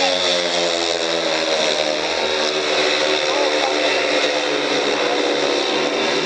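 Speedway motorcycles, 500cc single-cylinder methanol-burning engines, racing; their engine notes fall in pitch over the first couple of seconds.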